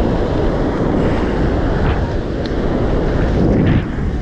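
Wind buffeting the microphone in a steady low rumble, over small surf washing onto the beach.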